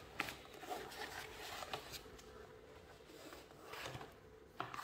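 Faint rustling and rubbing of white foam packing blocks against a cardboard box as the unit is lifted out, with a few soft knocks and clicks, one about four seconds in and another near the end.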